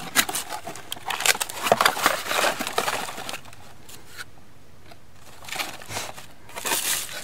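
A cardboard product box being opened by hand, with the plastic bag of parts inside crinkling and rustling. The rustling is dense for the first three seconds, eases off for a moment, then starts again near the end.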